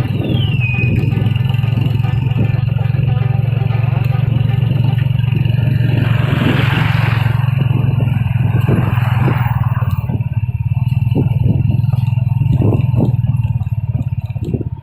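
A small vehicle engine running steadily, heard from on board the moving vehicle, with a rushing noise swelling and fading through the middle. The engine sound dies down near the end.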